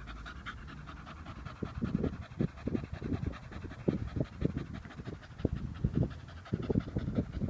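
Staffordshire bull terrier panting with a tennis ball held in its mouth: quick, evenly spaced breaths, about three to four a second, starting about a second and a half in.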